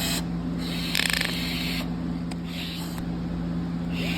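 Hand-cranked pulley rig creaking and clicking in several short bursts as it is tensioned, one about a second in a quick run of clicks, over a steady low hum.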